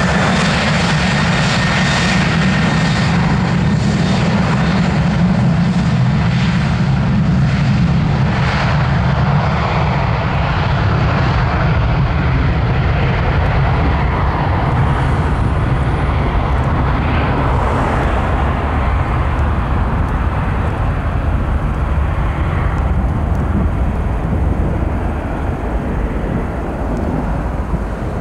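Boeing 737-800's CFM56-7B jet engines running at high power on the runway: a high fan whine in the first couple of seconds over a loud, steady rumble that slowly fades near the end as the aircraft moves away.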